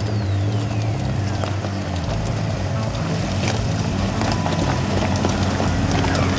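Off-road vehicle engine running steadily under load, with scattered knocks and rattles from the vehicle over rough ground.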